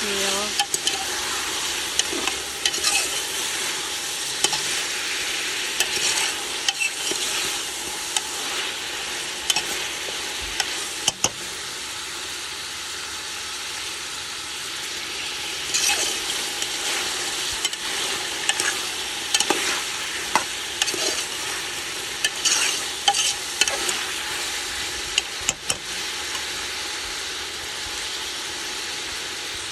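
Turkey wings and pigtails sizzling in a pot, a steady frying hiss broken by scattered sharp clicks and knocks.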